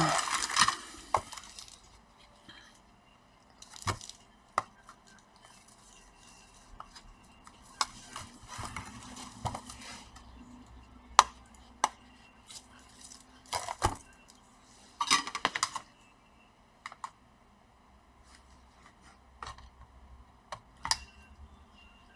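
Scattered clicks, taps and light metallic clinks of laptop parts being handled and fitted, including a metal plate set back into the laptop's casing. The sounds come irregularly, with a louder cluster at the start and another about two thirds of the way through.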